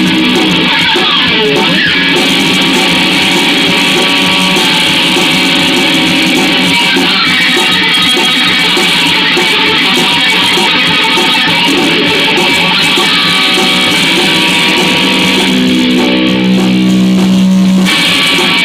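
Instrumental rock music led by electric guitar, ending on a held chord that cuts off suddenly near the end.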